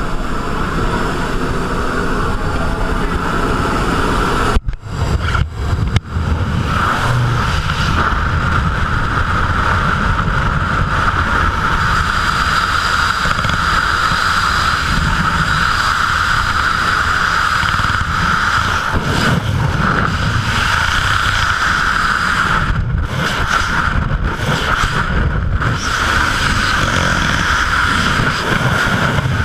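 Loud, steady rush of wind buffeting the microphone during a skydive, with a constant whistling tone running through it. The sound drops out briefly a few times, about five seconds in and again later on.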